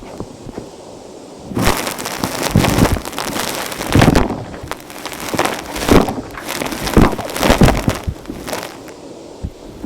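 Vacuum cleaner sucking up gritty dirt, with a loud crackling crunch from about a second and a half in, rising and falling several times, then easing off near the end.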